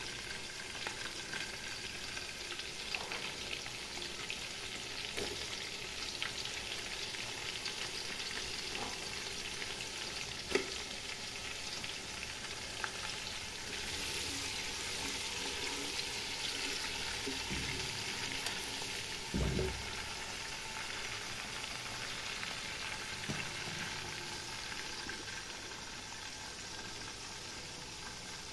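Sliced onions frying in hot oil in a nonstick pot, a steady sizzle with scattered clicks and scrapes from a spatula stirring them. A dull knock about two-thirds of the way in.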